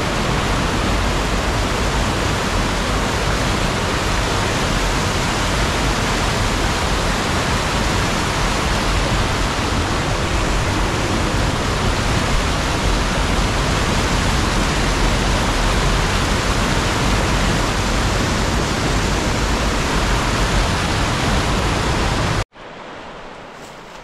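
Whitewater rushing loudly and steadily through a class 2 river rapid over rock ledges. About 22 seconds in it cuts off suddenly, giving way to the much quieter flow of a shallow riffle.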